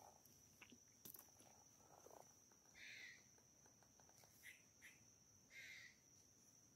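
Near silence: a faint, steady, high-pitched insect drone, with a few short high chirps scattered through.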